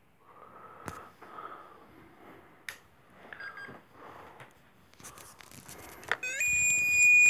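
Ghost-hunting spirit box scanning: short, choppy snatches of static and broken radio sound, with a few sharp clicks. About six seconds in, a loud electronic alarm tone slides up in pitch and then holds one steady high note.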